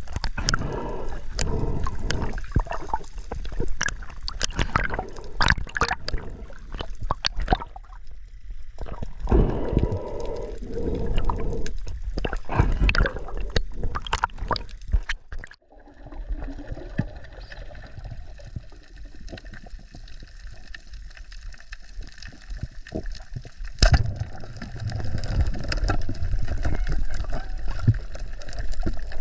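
Water gurgling and sloshing, with many sharp clicks and knocks. A little past halfway the sound cuts out for a moment and comes back quieter, then grows louder again near the end.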